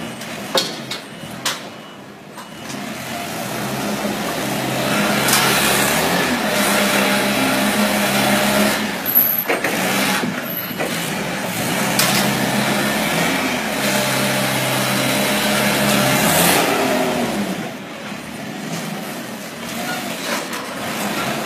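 Gas-powered Toyota forklift engine running under load as the forklift drives and lifts. The engine rises in pitch and loudness about four seconds in, holds there, then falls back near the end, with a few sharp knocks in the first couple of seconds.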